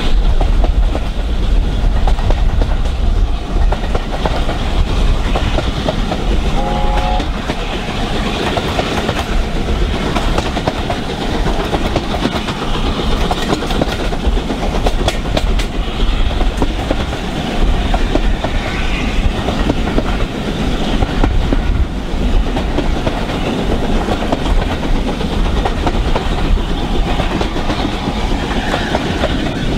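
The two steam locomotives at the head of the train, A4 Pacific 60007 Sir Nigel Gresley and Britannia-class 70000 Britannia, working the train, heard from a carriage window behind them. Their exhaust and the clickety-clack of the coaches' wheels over the rail joints make a steady, loud noise, with a brief whistle note about seven seconds in.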